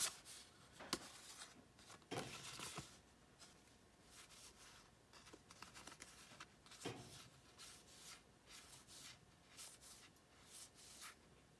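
Faint rustling and light clicks of stiff cardstock game cards being handled and fanned out in the hands, in a few short bursts.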